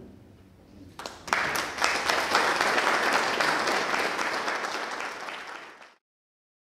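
Audience applauding. The clapping starts about a second in and fades out near the end.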